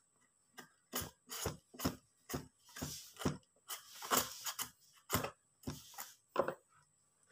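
A hand-held metal shredder scraping strips from a peeled young green papaya, in repeated strokes about twice a second, with a couple of longer drawn-out scrapes near the middle.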